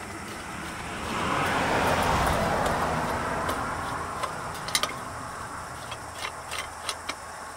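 Rushing noise of a vehicle passing by, swelling about a second in and fading away over several seconds, with a few light metal clicks from the lantern's top cap being unscrewed.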